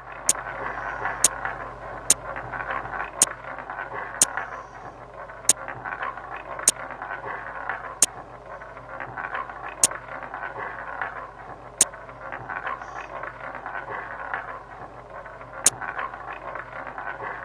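About a dozen sharp, short clicks, roughly one a second with a few longer gaps, as single chips are placed one by one on an online roulette table. Under them runs a steady background noise.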